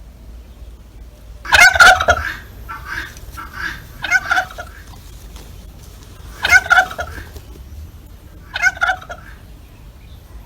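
Turkey gobbling: a loud, rapid rattling gobble about a second and a half in, another near the middle and a shorter one near the end, with a few softer short calls between the first two.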